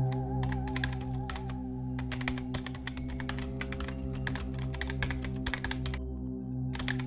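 Rapid keystrokes on a computer keyboard typing out a command. The typing breaks briefly a little over a second in, stops about six seconds in, and starts again near the end. Steady background music runs underneath.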